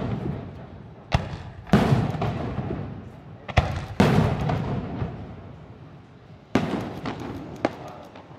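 Aerial firework shells bursting: a string of sharp bangs, each followed by a rumbling echo that fades over a second or two. The heaviest bursts come about two and four seconds in.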